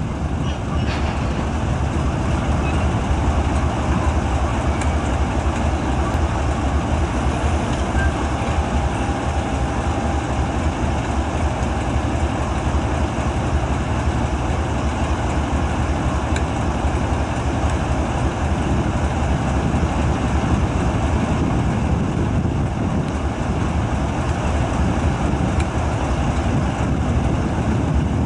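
KiwiRail DX-class diesel-electric locomotive's 12-cylinder GE diesel engine running steadily at low power: a deep, even rumble that holds the same level throughout.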